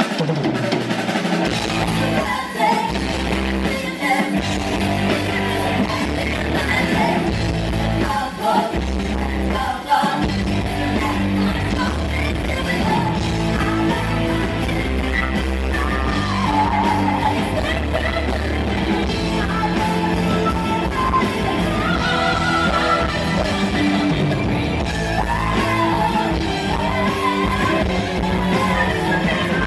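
Rock-style music with singing and a steady bass line.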